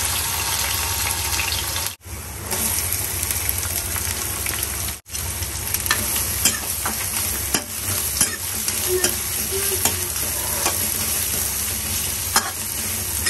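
Cumin seeds, then chopped onions and green chillies, sizzling in hot oil in an aluminium kadhai. A metal ladle stirs and scrapes against the pan, giving many short clicks over the second half. The sound cuts out briefly twice, at edits.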